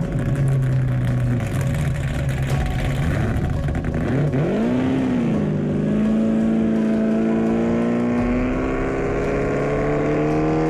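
Big Red, a 2,000-horsepower 1969 Camaro race car, running its supercharged engine. It holds a steady note, gives one quick rev up and back down about halfway through, then pulls away with the engine pitch climbing steadily as the car accelerates.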